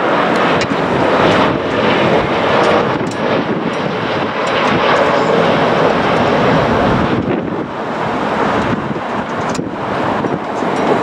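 Jet airliner engines running as the aircraft comes in on final approach to land, a loud, steady rush of noise, with wind buffeting the microphone in gusts.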